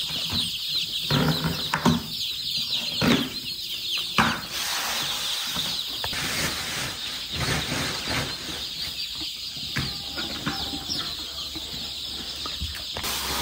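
A brood of young chicks peeping: many short, high, falling peeps overlapping, thickest in the first few seconds and thinning after. A few knocks sound in the first four seconds.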